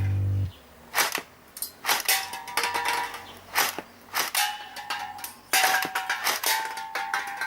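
Heckler & Koch G36C airsoft gun (0.5 joule) firing single shots, about a dozen at an uneven pace, each a sharp crack followed by a brief ringing tone. A loud, low music chord cuts off about half a second in.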